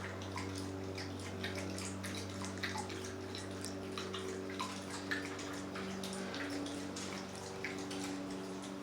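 Corgis lapping water from a bowl: irregular small wet splashes and clicks, over a steady low electrical hum.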